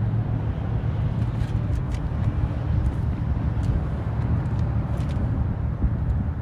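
Steady low rumble of motor traffic, with a few faint light clicks.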